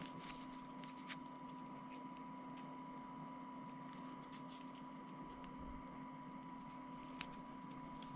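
Faint hand-handling of a small label roll and its sticky paper seal: scattered light clicks and rustles as it is pressed back into place, with a sharper click about a second in and another near the end. A steady faint hum runs underneath.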